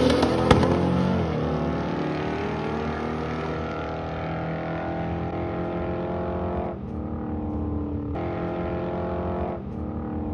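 Turbocharged Honda B18 four-cylinder in a Civic hatchback at full throttle on a drag pass. Its pitch climbs through the gears, with brief breaks at the shifts about seven and nine and a half seconds in, and it fades as the car pulls away. A sharp crack is heard about half a second in.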